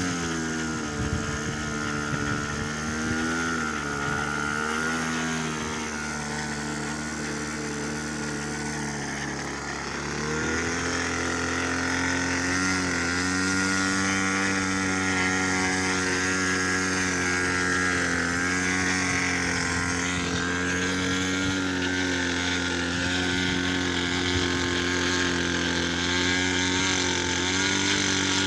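Small model airplane engine running on the ground with its propeller spinning. Its pitch drops to a low idle at the start, then about ten seconds in it rises to a higher, steady speed and holds there.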